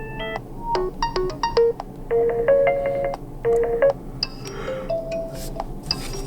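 Realme Narzo 50i ringtone playing: a held chord ends just under half a second in, then a melody of short, bright pitched notes follows.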